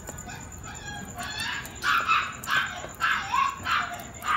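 A dog barking: a rapid string of short barks, about three a second, beginning a little under two seconds in.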